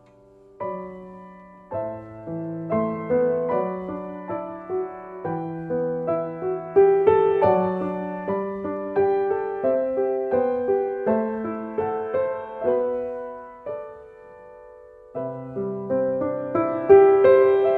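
Slow solo piano music, single notes and chords that ring and fade. It thins to one dying note about fourteen seconds in, then comes back with a fuller chord.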